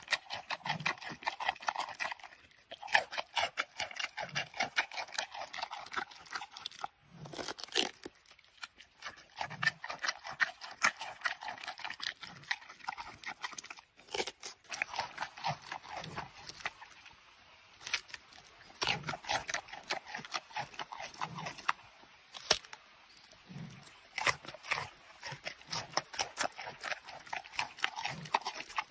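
Giant panda biting and chewing butternut squash: runs of rapid crunching separated by short pauses between bites.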